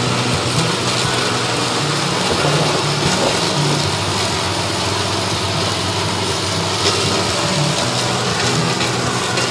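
Toro ZS4200T zero-turn riding mower running steadily, its engine under load and its deck blades cutting through tall, dense meadow grass.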